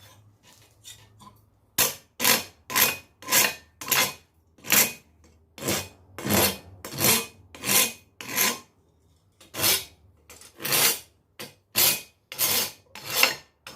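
Hand file rasping on forged steel in quick, even strokes, about two a second after a quieter first two seconds, taking off a rag: a thin, ragged burr of metal left on the piece.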